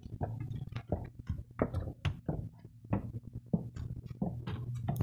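Irregular light clicks and knocks of household things being handled, over a steady low hum.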